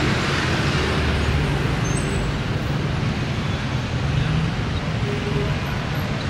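City street traffic: a steady din of passing cars and other vehicles, with a low engine hum underneath.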